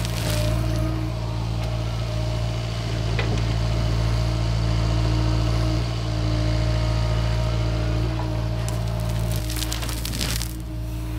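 Hitachi Zaxis 55U mini excavator's diesel engine running steadily, with loose soil pouring from its bucket into a trench at the start and again about nine to ten seconds in.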